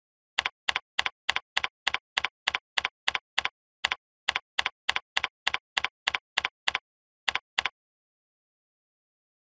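Typing on a computer keyboard: about two dozen sharp key clicks at an even pace of about three a second, with short gaps about four and seven seconds in, then stopping.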